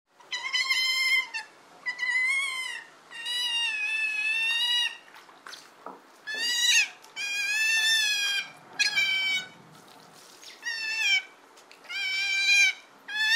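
Sea otter giving a series of about nine high-pitched, wavering squealing calls, each from half a second to about two seconds long, with short pauses between.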